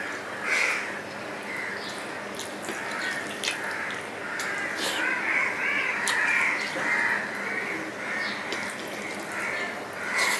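Crows cawing again and again, with the wet clicks and smacks of a man chewing a mouthful of rice and fish curry eaten by hand.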